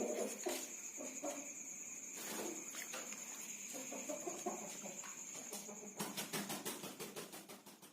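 A chicken making soft, irregular clucks over a steady high-pitched ringing. The ringing stops about six seconds in and gives way to a quick run of clicks.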